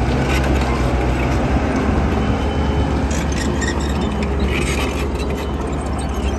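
Diesel engine of a tracked earthmover running steadily while it levels soil, with short bursts of rattling in the second half.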